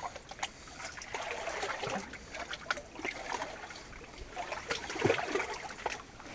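Feet wading through shallow water in a stone-lined tunnel: irregular splashing and sloshing with each step, loudest about five seconds in.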